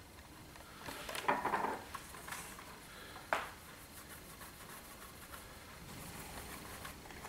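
Small handling sounds of a metal tin and small objects on a worktable: a cluster of clicks and light knocks about a second in, then a single sharp tap a little after three seconds.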